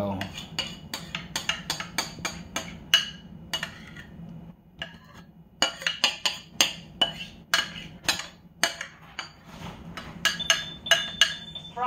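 A utensil knocking and scraping against a ceramic mixing bowl as waffle batter is scraped into a glass measuring cup: sharp, irregular clicks a few a second, with a pause of about a second a little before halfway.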